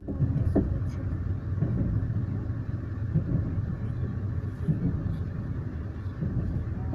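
Steady low rumble of a moving passenger train heard from inside the carriage, with a few brief knocks in it.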